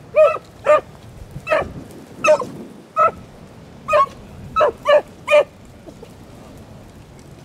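Beagle hounds giving short, sharp barks while trailing rabbit scent, about nine barks in quick, uneven succession that stop about five and a half seconds in.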